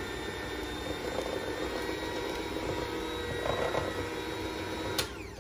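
Electric hand mixer running steadily, its beaters whisking thin waffle batter in a stainless steel bowl. It is switched off with a click about five seconds in.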